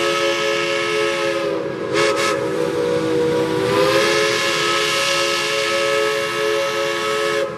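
Steam locomotive whistle blowing a long, loud multi-note chord. Its pitch sags for a couple of seconds in the middle, and it drops in level just before the end.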